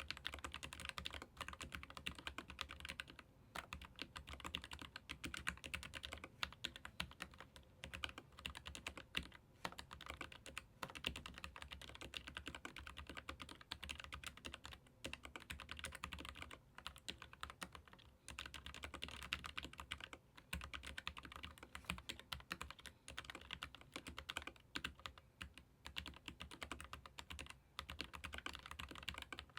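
Continuous fast typing on a Keychron K15 Pro Max mechanical keyboard with Gateron low-profile red linear switches: a dense run of keystroke clacks with brief pauses every few seconds.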